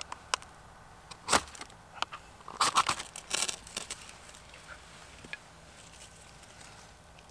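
Ferro rod struck with the back of a knife: one quick rasping scrape about a second in, then a run of four or five more between about two and a half and four seconds, throwing sparks that light the bark tinder.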